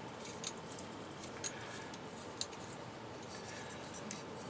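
A few faint, scattered plastic clicks and ticks, about four clear ones, from a three-way grip arm being handled, its jointed sections turned and pulled apart.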